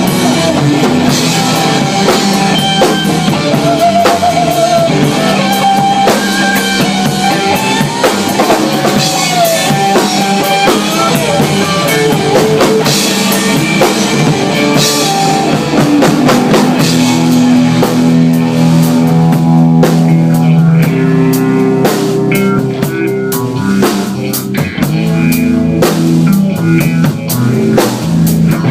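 A rock band playing live: a drum kit with cymbals driving the beat under electric guitar, with a bending melodic line over the top in the first half.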